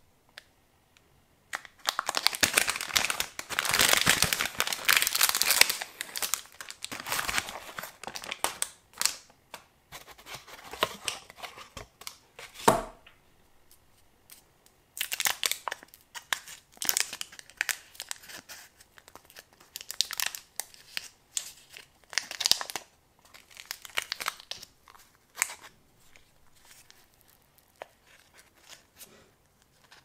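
Plastic candy wrapper of a Reese's peanut butter cup being torn open and crinkled by hand, loudest in the first several seconds. Then come repeated bursts of crinkling and paper rustling as the cup is handled in its paper liner, with a single knock about halfway through.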